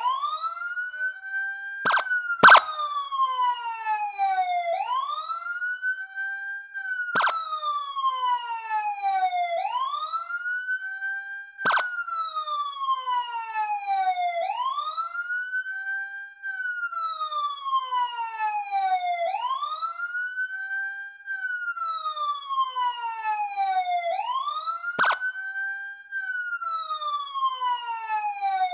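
Police siren sounding its wail tone, a steady cycle that rises quickly and falls slowly about once every five seconds. A few short clicks cut in now and then, the loudest about two and a half seconds in.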